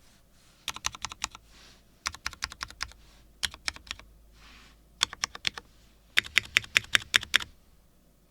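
Typing on a Geonworks F1-8X V2 mechanical keyboard with Cherry MX Black linear switches on a PEI plate: sharp keystroke clicks in quick runs of several presses with short pauses between, the longest and loudest run near the end.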